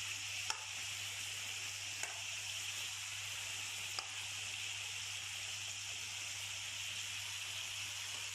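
Marinated chicken pieces sizzling steadily as they fry in hot oil in a pan, with three short sharp clicks about half a second, two and four seconds in, over a steady low hum.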